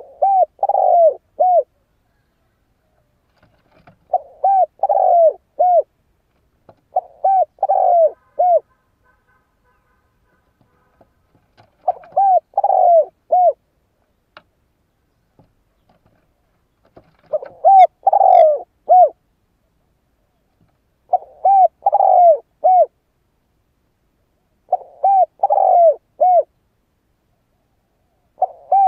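Spotted dove cooing. It calls eight times, each a phrase of three to four low, arched coos, with a pause of a few seconds between phrases.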